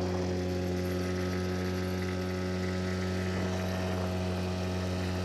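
Mercury 5 hp outboard motor running steadily at high speed, pushing an inflatable boat over the water, with an even, unchanging engine tone.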